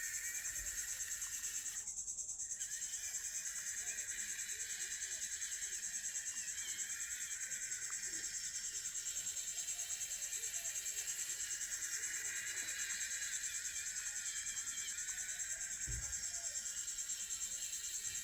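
Insects, crickets by the sound, trilling in a steady high-pitched chorus with a fast pulse. A single low thump comes near the end.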